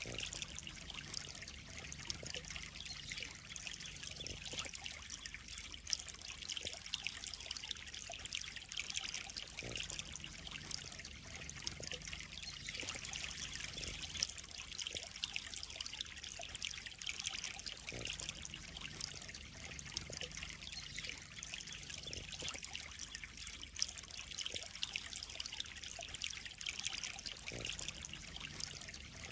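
Water trickling and splashing steadily into a koi pond: a continuous, even run of small splashes.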